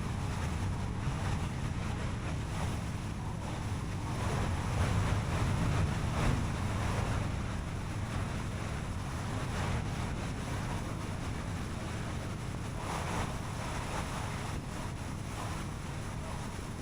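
Car driving on the road: steady tyre and road noise with a low rumble and wind rush, swelling slightly a few seconds in.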